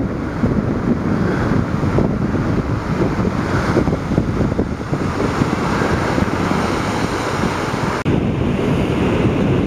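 Wind buffeting the microphone over a steady wash of ocean surf.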